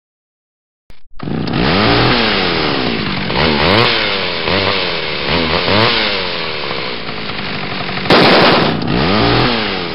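A small engine sound effect revving up and down over and over, starting about a second in, with its loudest rev about eight seconds in.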